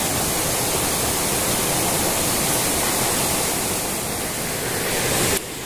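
Steady rushing of river water, an even noise, stepping down abruptly near the end.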